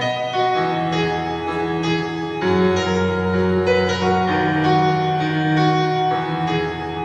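Instrumental karaoke backing track with no singing: sustained keyboard chords over a low bass line, the chord changing every second or so.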